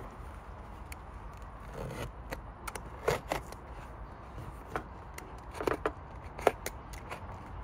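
Utility knife blade cutting and scraping into a sneaker's upper: scattered short scratches and clicks, the loudest about three seconds in.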